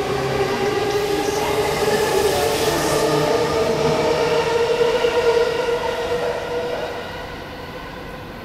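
Jōban Line local electric commuter train passing close by: motor whine with running noise from the wheels, the whine rising slightly in pitch. It fades away over the last couple of seconds as the train draws off.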